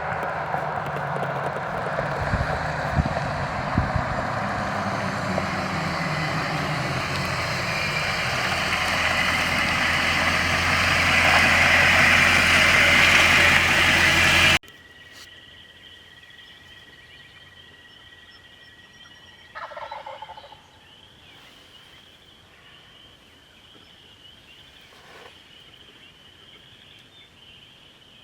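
A loud rushing noise with a low hum grows louder and then cuts off abruptly about halfway through. Over a quiet background with a steady high hiss, a wild turkey gobbler then gobbles once, about twenty seconds in, with a fainter call a few seconds later.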